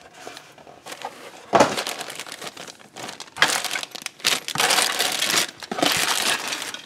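Cardboard model-kit box being opened, with a sudden rustle about a second and a half in, then clear plastic bags of plastic sprues crinkling and rustling as they are handled for the last few seconds.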